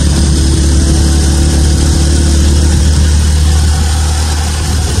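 Motorized tricycle's motorcycle engine running steadily under way, a strong low hum, with wind and road noise rushing past the open sidecar.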